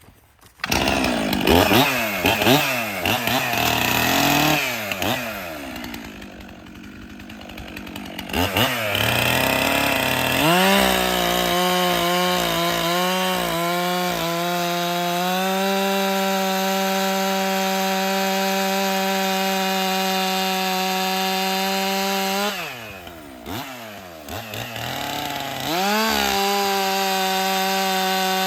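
Stihl MS 400 C two-stroke chainsaw starting and being revved several times, then run at a steady full throttle, most likely through a cut in a log. Near the end it eases off briefly and goes back to full throttle. The chain has just had its rakers filed down so that it will cut properly.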